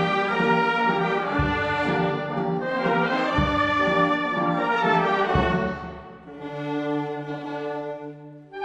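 Wind band playing a slow Good Friday funeral march: sustained brass chords over a low drum stroke every two seconds, easing to a soft held chord about six seconds in.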